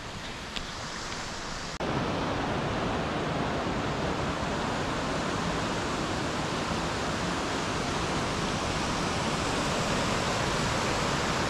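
Steady, even rushing hiss with no pitch or rhythm, which starts abruptly about two seconds in after a quieter stretch.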